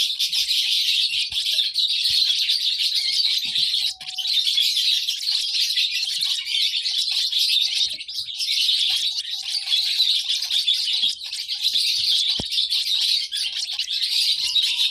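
Lovebirds chirping: a dense, unbroken chatter of high chirps, with brief lulls about 4 and 8 seconds in.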